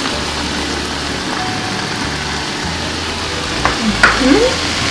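Green beans and collard greens sautéing in a frying pan with a steady sizzle, and a couple of light clicks about three and a half seconds in.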